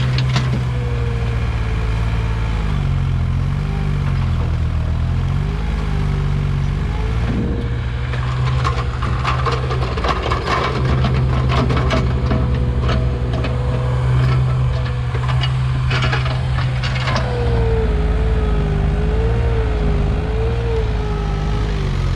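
Komatsu PC15 mini excavator's diesel engine running under working load, its pitch shifting as the hydraulics are worked, with a whine that wavers up and down. From about seven to seventeen seconds in, a run of rapid clicks and knocks as the machine works.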